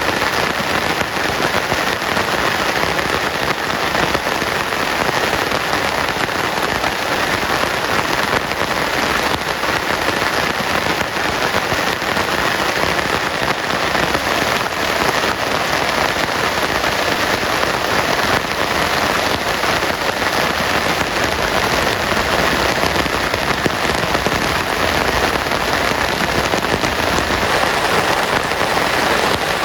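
Heavy rain falling steadily, a dense even hiss made of countless fine drop impacts.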